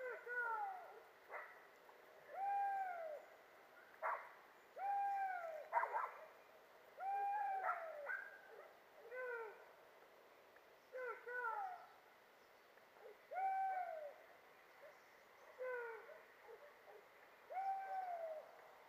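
Hunting dogs baying in the brush during a drive: several voices giving repeated yelping cries, each rising then falling in pitch, about one a second. A few sharp knocks are mixed in.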